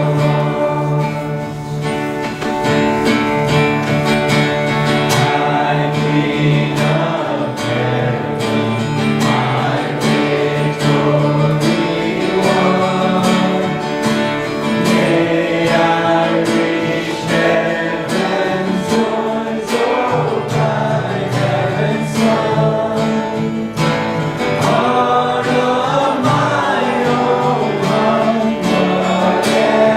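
Worship music: strummed acoustic guitar with singing.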